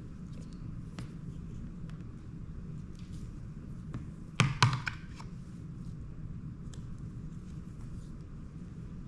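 A quick run of sharp taps and knocks about halfway through, from a hard object being handled, over a steady low hum.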